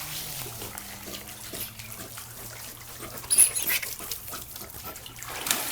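Dogs in and around a swimming pool: water splashing and dripping with small knocks, and a short louder splash a little over three seconds in.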